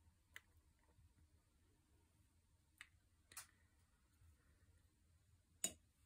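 Near quiet with four light clicks, the loudest near the end: a watercolour paintbrush being tapped to flick small splatters of paint onto the paper.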